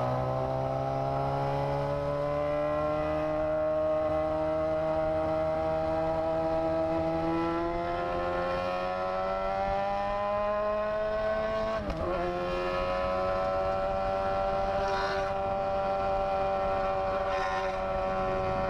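Yamaha FZ6 inline-four motorcycle engine under way, its pitch rising slowly as the bike accelerates, with one brief break for a gear change about twelve seconds in. Wind and road noise run underneath.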